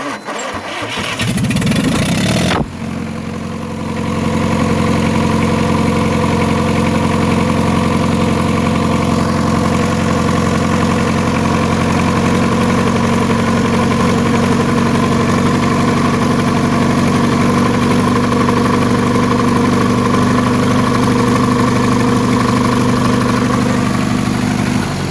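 Diesel engine cranked by its electric starter motor for about two and a half seconds, then catching and settling into a steady idle.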